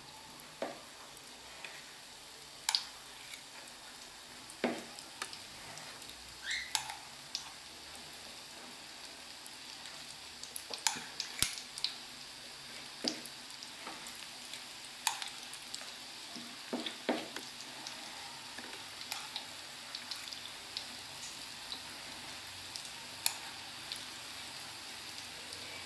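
Batter fritters frying in hot fat in an aluminium pot over low heat: a steady sizzle with scattered sharp pops and clicks.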